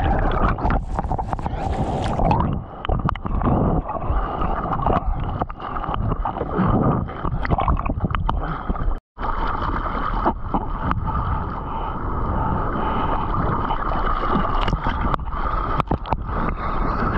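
Water splashing and gurgling right against a GoPro action camera as a surfer paddles a surfboard by hand through whitewater, the camera dipping underwater at times. The sound drops out completely for a moment about nine seconds in.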